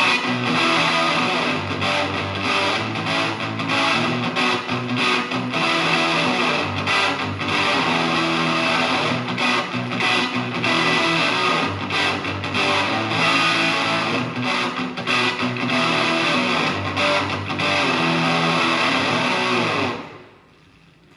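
Electric guitar played through a Tone Bender MKII–style germanium fuzz pedal: a continuous distorted, fuzzy riff with strummed and picked notes. The playing stops about a second before the end.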